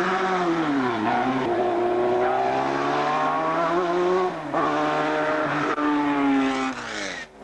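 Formula 3 racing car's four-cylinder engine running hard on a hillclimb, its pitch climbing steadily and dropping sharply at each upshift, three times, before pulling away.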